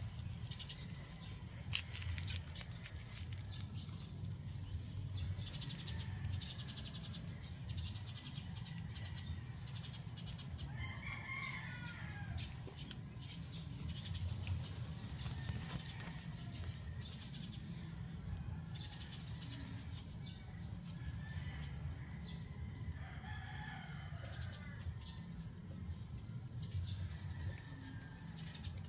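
A rooster crowing twice, once about a third of the way in and again near the end, over a steady high-pitched whine and a low rumble of outdoor background.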